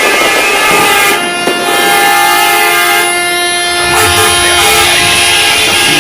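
Loud vehicle horns sounding in long, steady held notes over a noisy background, with the pitch changing about a second in.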